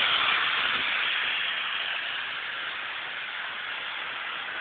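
HO-scale model train running on its track: a steady, even whirring hiss of the small motor and wheels on the rails, a little louder in the first couple of seconds, then level.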